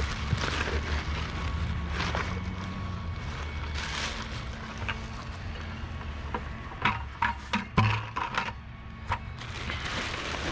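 Litter going into a plastic trash bag: a cluster of short rustles and crackles past the middle, over a steady low rumble.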